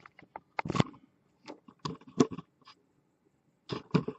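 Scattered small clicks and knocks of hands handling a 3D printer's removed power switch and its wire connectors, some louder taps about two seconds in and near the end.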